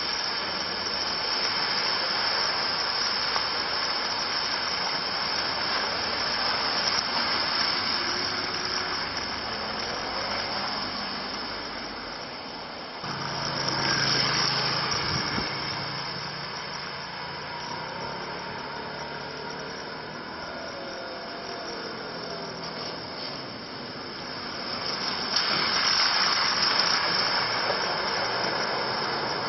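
Cars driving through deep standing water on a flooded road, their tyres throwing up spray with a rushing splash over the engine noise. The splashing swells during the first few seconds, again just before the halfway mark, and near the end, as an Audi sedan ploughs through.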